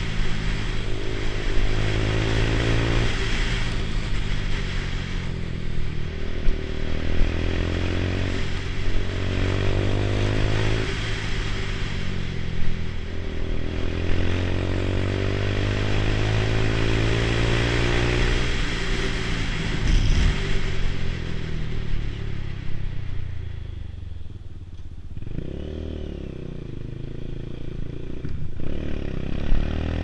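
Lexmoto Tempest GT 125's single-cylinder four-stroke engine under way, its pitch climbing through each gear and dropping back at the shifts, several times over. About three-quarters of the way through it falls to a quieter, low steady running as the bike slows, then picks up again near the end, with wind rush over the helmet microphone.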